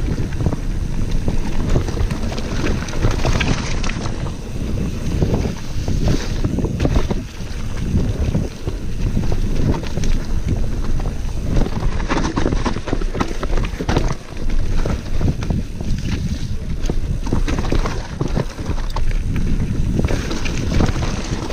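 Wind rushing over an action camera's microphone as a Vitus Mythique 27 VRX mountain bike descends a dirt trail, with tyres rumbling on the ground and the bike knocking and rattling over bumps throughout.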